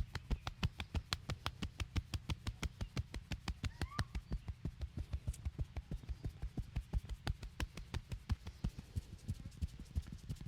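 Hands striking the body in rapid, even percussive massage strokes, about six slaps a second.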